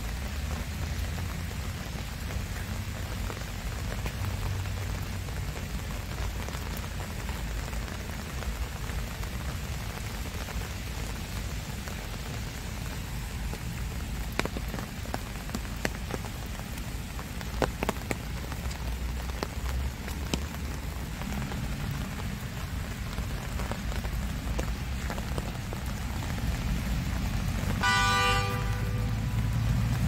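Steady rain falling on garden foliage, an even hiss with scattered drips, over a low rumble. About two seconds before the end, a brief pitched call sounds for about a second.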